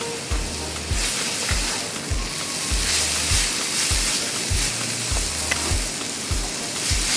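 Shredded cabbage, carrots and green pepper sizzling in a hot oiled pan as they are stir-fried with a wooden spatula. The sizzle grows louder about a second in.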